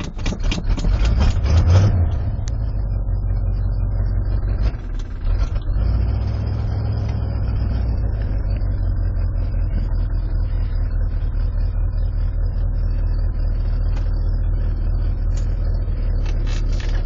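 Carbureted 302 V8 of a 1986 Ford F-150 running steadily at a raised cold-start idle, heard from inside the cab. A quick run of knocks and rattles sounds over it in the first two seconds.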